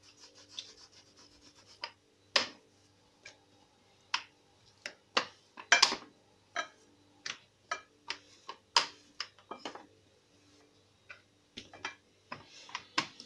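Stainless-steel rolling pin with plastic handles rolled back and forth over dough on a marble worktop: soft rubbing broken by irregular clicks and knocks, the loudest about two and a half, six and nine seconds in.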